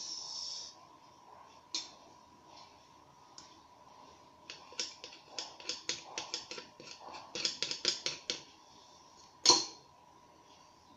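A quick run of small, sharp clicks and taps, about five a second, from a hand tool and small parts being handled on the opened Nikon SB-600 flash, ending in one louder click.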